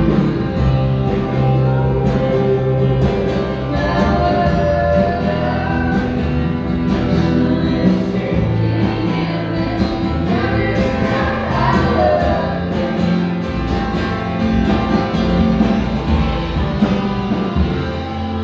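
Live rock band playing an instrumental passage with drums, bass and electric guitar; the music eases off slightly near the end.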